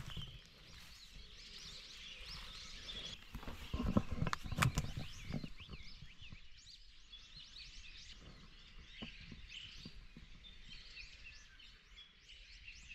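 Small birds chirping and twittering in many short, quick calls, with a few sharp clicks and low thumps about four to five seconds in.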